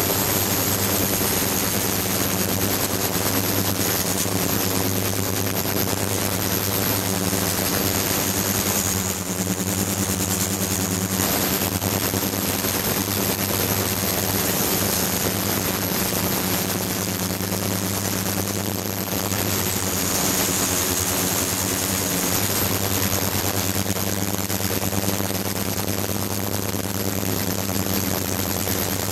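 Ultrasonic cleaning tank running, with the sound of cavitation in the water: a steady buzzing hum, a hiss over it, and a thin high whine.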